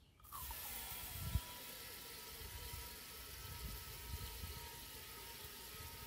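Steady hiss with a faint high whistle from the open valve stem of a small turf tire as Slime tire sealant is squeezed in through a hose, the building pressure pushing air out past the hose. A low knock about a second and a half in.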